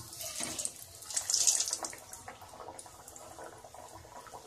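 Nimki pastries deep-frying in hot oil in a metal kadhai: a steady sizzle with small crackles, louder for a moment about a second in.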